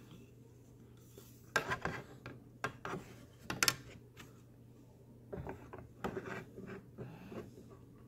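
A few sharp knocks and short scrapes as a speed square and clamps are handled against the couch's wooden frame, with a denser run of taps a little after halfway.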